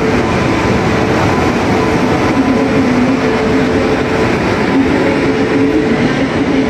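Indian Railways electric locomotive and the parcel vans behind it passing close by as the express train arrives at the platform: a steady rumble of wheels on rail with a steady hum running under it.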